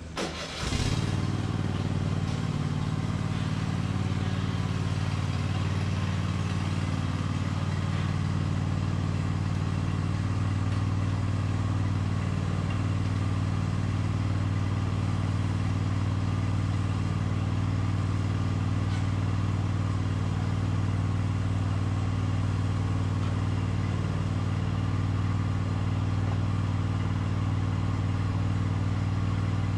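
A riding lawn mower's engine starts about half a second in, then runs steadily.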